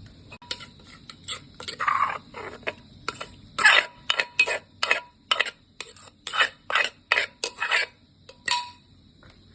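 Kitchen utensils clinking and scraping against a dish, a run of quick strokes about two a second through the middle, stopping a little before the end.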